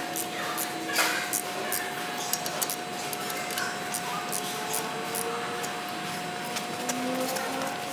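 Scattered sharp metal clicks and clinks of a hand tool working on a locomotive axle journal box as the thrust block assembly is fitted, over a steady faint hum.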